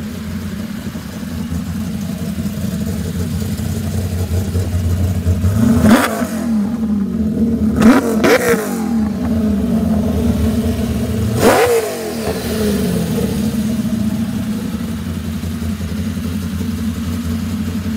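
1968 Ford Mustang's 363 cubic-inch stroker V8, built on a Dart SHP small-block, idling steadily through its exhaust. It is revved three times, about six, eight and eleven and a half seconds in, each rev climbing quickly and falling back to idle.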